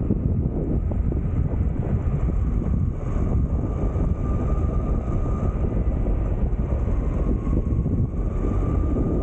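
Electric mountain board under way on asphalt: wind rushing over the microphone and tyre rumble, with the whine of its belt-driven Flipsky 6384 brushless motors, a thin tone that rises slightly near the end as the board speeds up.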